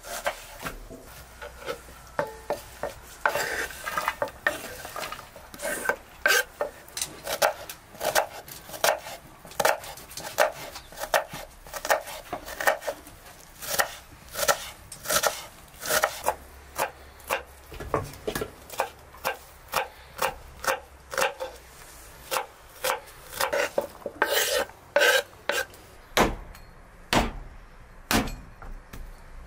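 Knife strokes on a wooden cutting board: a run of scraping and dicing chops, about one or two a second, with a few heavier, deeper chops near the end.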